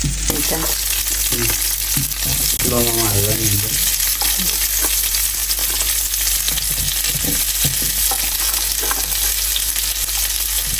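Chicken for chicken chilli sizzling and frying in hot oil in a pan while it is stirred, with a spatula scraping and knocking on the pan again and again.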